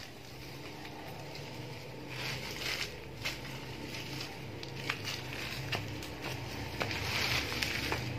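Rustling of freshly cut water-apple shoots and leaves being gathered up by hand, with a few sharp clicks, over a faint low hum.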